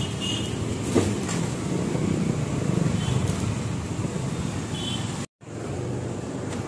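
Urban street traffic: vehicle engines and tyres running as a steady hum, with short faint horn toots about three seconds and five seconds in. The sound cuts out completely for a moment just after five seconds.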